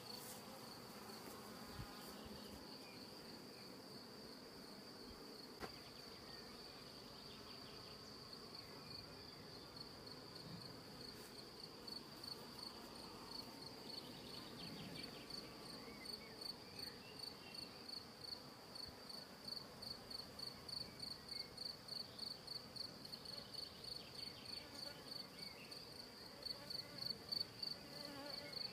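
Honeybees humming faintly in a hive. Over them a high-pitched insect trill runs steadily and then turns into rhythmic chirps, about two a second, in the last third.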